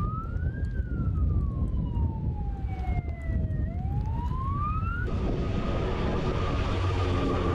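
An escort vehicle's siren wailing, sweeping slowly up, down and up again, over the low rumble of heavy vehicles. About five seconds in it cuts off and a heavy military truck's engine runs steadily as the truck approaches.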